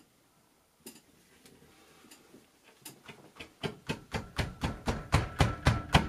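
Hand jab saw sawing through ceiling drywall to cut out a can-light hole: a few faint scrapes at first, then quick back-and-forth strokes, about four a second, growing louder from about three seconds in.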